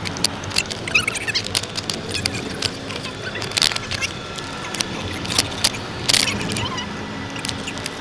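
Road noise inside a moving car, with frequent light clinks and clicks like keys or loose metal jangling.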